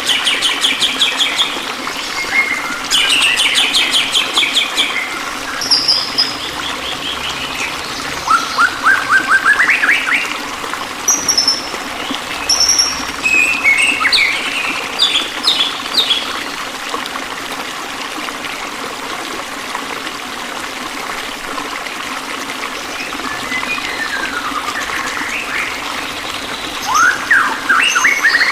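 Songbirds chirping and trilling in quick rapid series, some rising in pitch, over a steady trickle of running water. The birds fall quieter for several seconds before a burst of rising chirps near the end.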